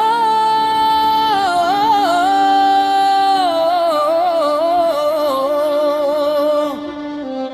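Music: a slow, wordless melody with slides and ornaments, held over a steady low drone note, easing off near the end.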